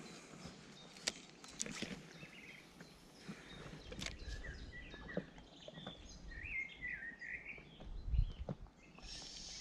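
Quiet lakeside outdoor sound: a bird sings a short warbling phrase around the middle, over scattered small clicks and knocks from handling the spinning rod and reel. Wind rumbles on the microphone from about halfway, with a gust near the end.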